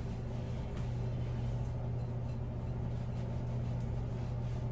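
A steady low hum with faint rustling as a towel is rubbed over short, damp hair.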